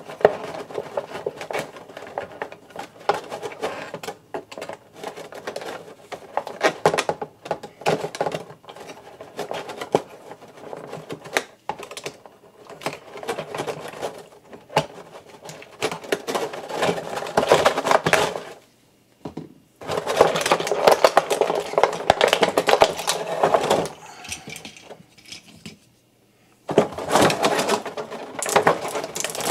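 Toy packaging being worked open by hand: plastic and cardboard crackling and rustling with many irregular clicks as small fastenings holding the figure are cut and pulled free. Busier stretches of rustling come in the second half, with short pauses between.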